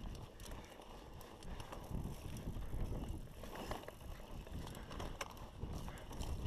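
Mountain bike riding along a narrow dirt trail: a low rumbling from the tyres and air rushing past, swelling and easing as it goes, with frequent small clicks and rattles from the bike.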